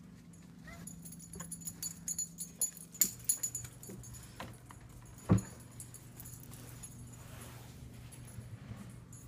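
Handling noise from a phone being moved around under furniture: scattered clicks and rubbing, with one sharp knock about five seconds in, over a steady low hum.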